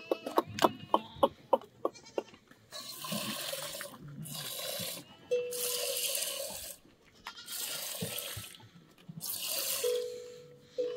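Liquid streaming into a container in four separate hissing pours of a second or two each, after a quick run of sharp clicks at the start.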